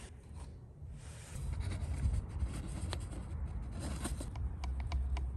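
A stick scraping in a plastic cup as paint is stirred, and plastic cups being handled during pouring with a few small clicks, over a low steady rumble that starts about a second in.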